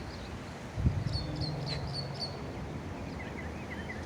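Wild birds calling: a quick run of short, high chirps about a second in, then a lower series of short repeated notes from about three seconds, over a steady low rumble.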